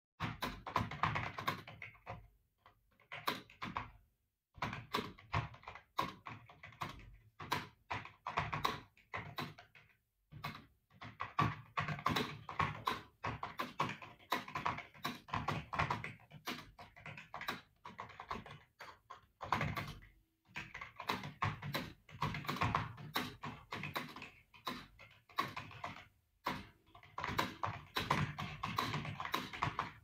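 Fast touch-typing on a cheap basic keyboard with small, closely spaced keys, at about 59 words per minute: a dense clatter of key presses in runs of a few seconds, broken by brief pauses.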